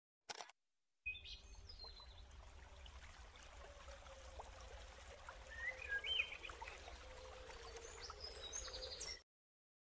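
A short burst of noise, then birds chirping and calling over a steady hiss like running water; the ambience cuts off suddenly near the end.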